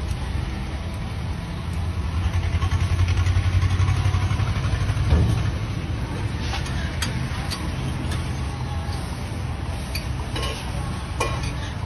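Steady low rumble of roadside traffic, a vehicle engine swelling louder for a few seconds and then easing off, with a thump in the middle and a few short sharp clicks later on.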